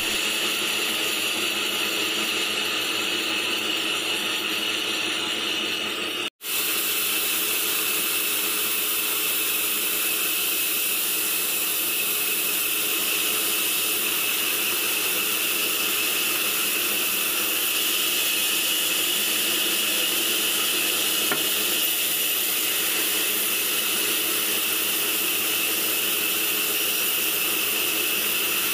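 Sawmill band saw running steadily while a log is fed through it, a constant mechanical whine and rush. The sound cuts out for an instant about six seconds in.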